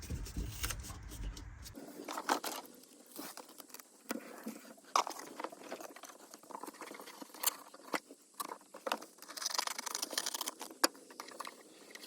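Scraps of sound-deadening mat being handled and pressed onto the sheet-metal back wall of a pickup cab: irregular scraping, crinkling and sharp taps, with a busier stretch of crinkling about ten seconds in.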